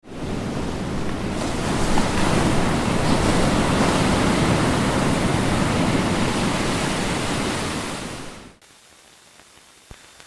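Ocean surf, a steady rushing wash of waves that fades and drops off about eight and a half seconds in, leaving only a faint hush.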